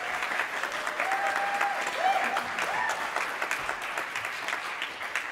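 Audience applauding in a concert hall, many hands clapping at once, with a few voices calling out over the clapping.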